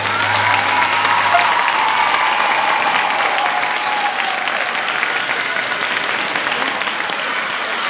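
Audience applauding steadily through a skating performance, with some cheering; a low held note of the program music dies away in the first couple of seconds.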